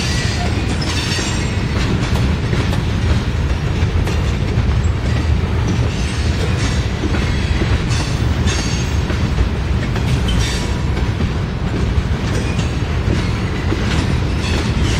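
Freight train of tank cars rolling past close by: a steady low rumble of steel wheels on rail, with clicks at the rail joints and short high-pitched wheel squeals every second or two.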